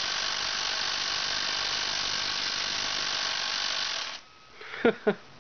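Homemade electric chainsaw, a salvaged cordless-drill motor powered by an RC battery and driving a loosely tensioned chain around a custom bar with no spur gear, running steadily, then cutting off about four seconds in. Two brief vocal sounds follow near the end.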